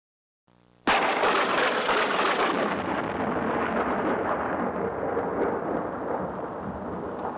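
Thunderclap sound effect: a sudden loud crack about a second in, then a long noisy roll of thunder that slowly grows duller and quieter.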